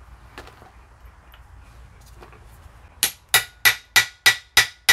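Steel hammer striking a socket used as a drift on a Citroën 2CV front suspension arm's kingpin housing, dressing the seat. The blows start about three seconds in, a quick even run of about three a second, each with a bright metallic ring.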